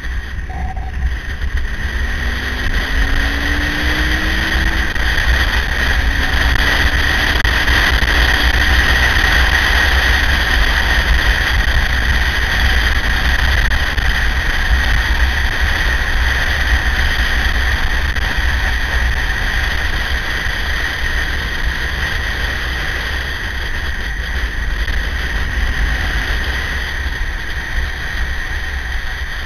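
Heavy wind rushing over the microphone of a motorcycle at road speed, with the KTM 950's LC8 V-twin engine running underneath. About two seconds in, the engine's pitch rises briefly as the bike accelerates.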